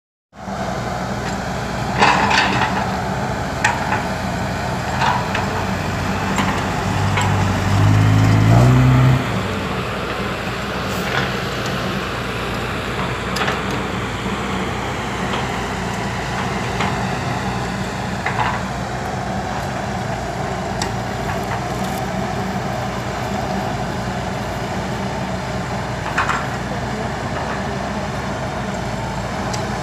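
Heavy diesel engines of a six-wheel dump truck and a Hitachi excavator running, as the truck manoeuvres into position to be loaded. About seven seconds in an engine revs up, rising in pitch, and drops back abruptly near nine seconds. Scattered short knocks and clanks sound over the drone.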